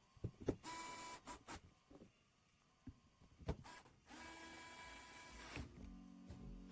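A small electric screwdriver with a Torx bit whirs in short runs as it drives small screws into a plastic motor box, among a few light clicks of handling.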